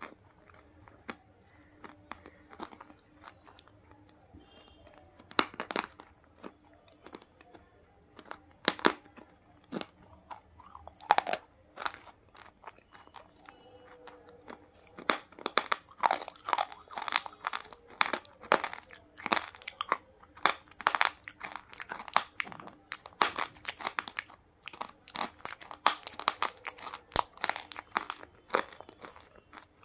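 Close-miked chewing of hard, dry chalky bars: sharp crisp crunches, scattered at first, then quick and continuous for the second half.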